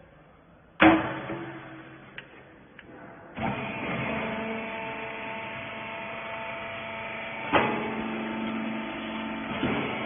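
The metal lid of a vertical rag baler's feed chamber slams shut about a second in, followed by two light clicks. A few seconds in, the baler's electric hydraulic pump starts and runs steadily with a hum and whine, with a single clunk near the end as the press works.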